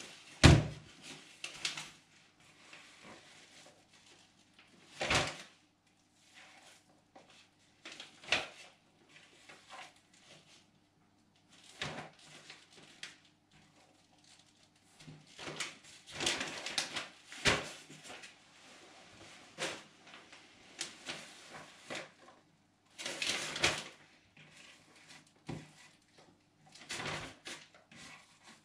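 Plastic freezer bags rustling and crinkling as minced meat is scooped by hand into them, with knocks of a bowl on the countertop; the loudest is a thump about half a second in.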